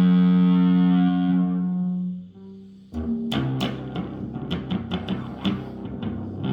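Electric bass guitar played as noise-making: a sustained, harmonic-rich note that dies away about two seconds in, then after a brief lull a run of sharp, irregular plucks and clicks on the strings.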